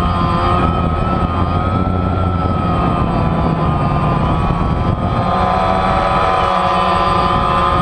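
DJI Phantom quadcopter's four motors and propellers whining steadily, heard from a camera mounted on the drone itself. The whine's pitch wavers slightly as the motors change speed to hold the flight.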